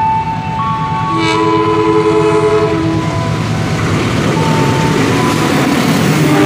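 Diesel-hauled passenger train sounding its horn as it approaches, a held multi-tone blast lasting a couple of seconds. Then its engine and the wheels on the rails grow louder as the locomotive runs past close by.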